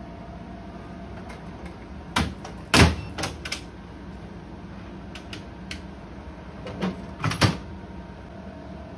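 Metal cabinet door of an IGT slot machine being shut and latched: a few sharp knocks and clunks, the loudest about three seconds in, then another cluster of clunks near the end, with faint clicks between. A steady low hum runs underneath.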